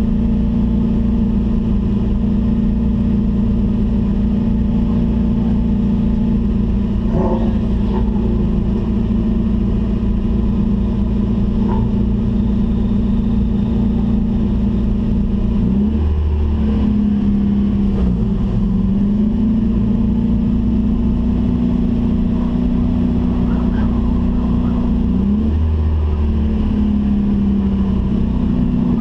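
Acura Integra Type-R race car's four-cylinder VTEC engine running hard at steady high revs. Its pitch dips sharply and climbs back twice, about halfway through and again near the end, as the driver shifts or lifts.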